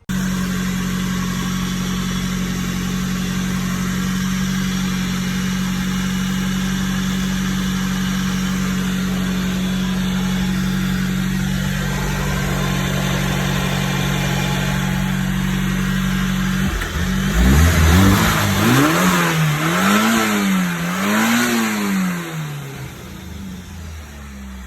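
Nissan Sunny B13's engine idling steadily, then revved in three or four quick blips that rise and fall in pitch, settling back to a lower idle near the end.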